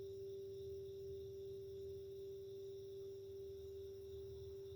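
A steady meditation drone: one sustained pure tone with a fainter higher tone above it and a low hum beneath.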